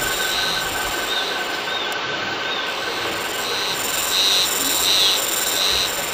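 Cicadas calling in a high, pulsed pattern that repeats about twice a second, over a steady hiss, fading out near the end.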